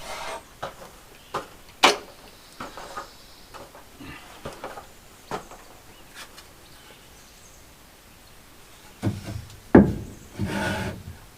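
Scattered wooden knocks and clunks of cut lumber being handled, with a louder thump and a short scraping rustle near the end.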